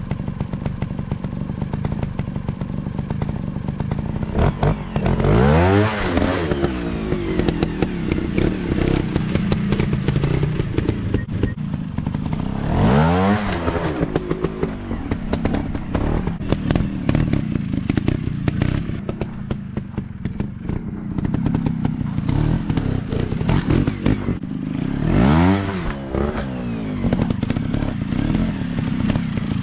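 Dirt bike engine running, revved hard and let back down three times: a few seconds in, about halfway, and again near the end.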